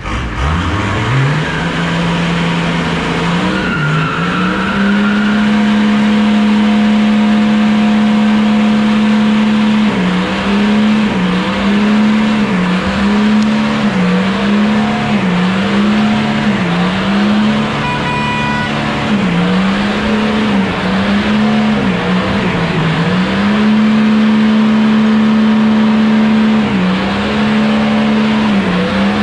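An engine revved up and held at high revs. Its note climbs in the first two seconds, holds steady, then sags and picks back up again and again before holding steady once more.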